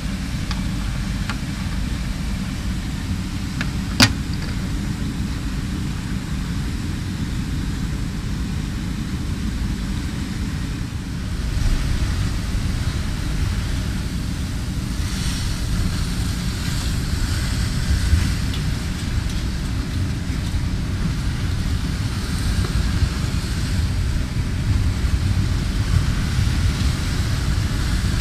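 Steady low mechanical rumble, with a single sharp click about four seconds in and a little more hiss over the rumble from about twelve seconds on.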